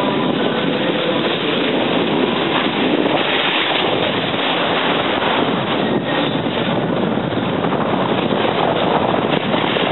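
Steady rushing noise of sliding down a snow slope: air rushing over the microphone with the hiss and scrape of snow under the camera operator's feet.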